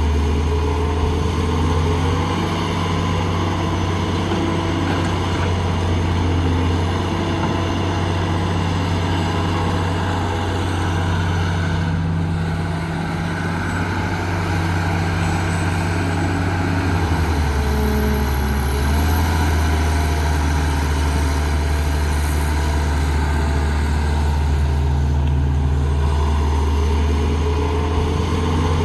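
Heavy construction machine's diesel engine running steadily, its note shifting briefly about two-thirds of the way through before settling again.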